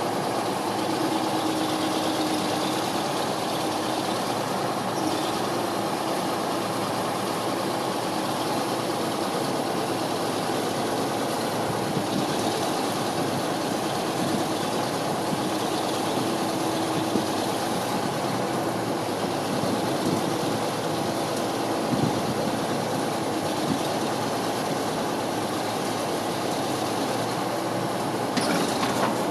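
Diesel engine of a 1987 John Deere 690D-LC excavator running steadily, with a short sharp sound near the end.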